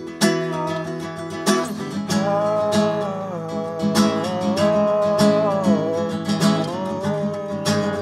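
Live acoustic guitar being strummed, with a man singing a long held, wavering vocal line over it from about two seconds in until near the end, played inside a car.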